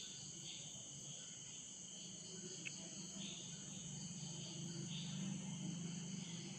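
Faint steady chirring of crickets in the background, pulsing every second or so, with a single small click near the middle and a low hum that swells over the last couple of seconds.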